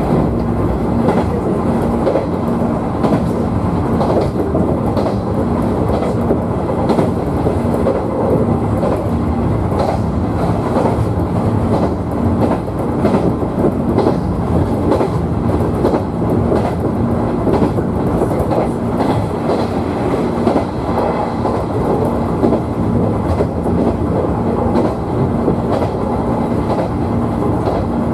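A JR 113 series electric multiple unit running at speed between stations, heard from inside the leading car. The wheels and running gear make a steady rumble with a low hum, and short clicks come again and again as the wheels pass over rail joints.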